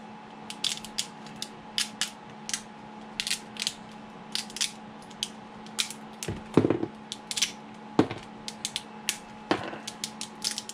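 Thin supports on a freshly printed resin 3D print snapping off under the fingers: an irregular run of small sharp clicks and cracks, with a few louder snaps in the second half. A faint steady hum runs underneath.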